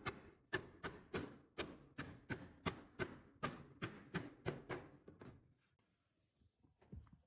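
A steady run of sharp knocks from a tool striking timber, about two to three a second. They die away about five seconds in, leaving a few faint taps.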